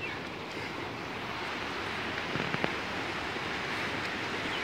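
Rushing creek tumbling over rocks: a steady roar of water, with one faint knock about two and a half seconds in.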